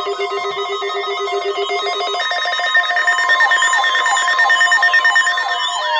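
Many electronic alarm tones sounding at once: steady tones at several pitches and a fast trilling, bell-like ring, joined about three seconds in by fast up-and-down siren sweeps.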